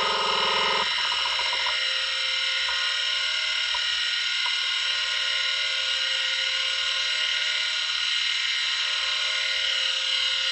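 Seagate ST-157A 44 MB hard drive spinning with a steady high-pitched whine. A patterned buzzing from the drive mechanism in the first second or so gives way to a few faint ticks. The drive was damaged by a drop and will not initialize.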